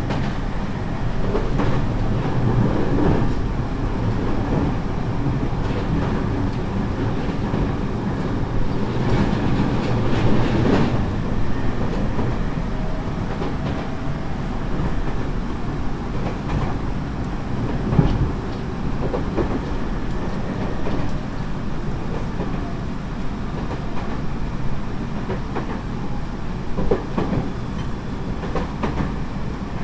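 Tobu 30000 series electric train heard from inside the car while running between stations: a steady rumble of wheels on rail, with a few sharp clicks as the wheels cross rail joints, the loudest about 18 seconds in.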